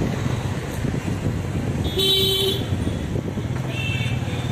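Motorcycle engine running at low speed under wind noise. A vehicle horn beeps once about two seconds in, and a fainter honk sounds near the end.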